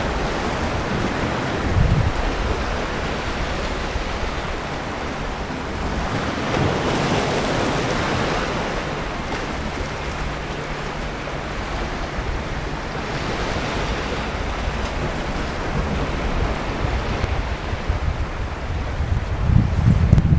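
Sea waves washing onto the beach in a steady surf, swelling about a third of the way in. Wind buffets the microphone briefly near the start and again near the end.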